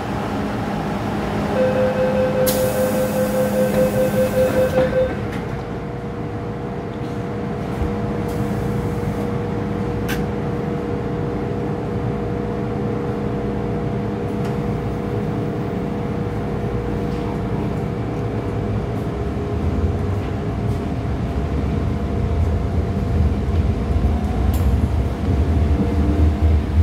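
Inside an MTR M-Train car: the door-closing warning beeps sound a couple of seconds in, with a hiss as the doors shut. Then the train pulls away, its traction motors giving a steady tone and its wheels a rumble that grows louder near the end.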